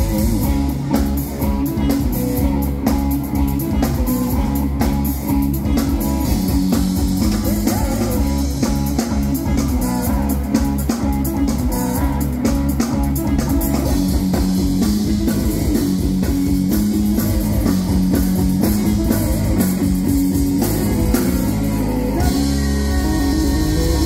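Live rock band playing: electric guitar, bass guitar and drum kit, with a woman singing.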